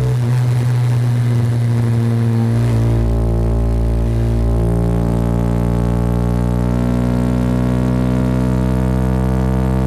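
Honda CB190R's single-cylinder engine running, heard from the rider's position. The note is rougher for the first couple of seconds, then settles and rises slowly in pitch in the second half.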